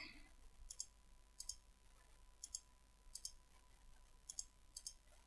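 Computer mouse buttons clicking faintly, about six times, most of them a quick pair of clicks, with near silence in between.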